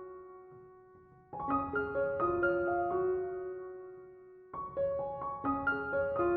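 Background piano music: a gentle melody played as phrases of a few notes each, each phrase dying away before the next begins, about a second in and again near the middle.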